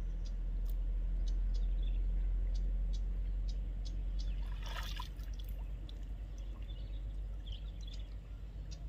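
Water trickling and dripping, with a brief splash about five seconds in.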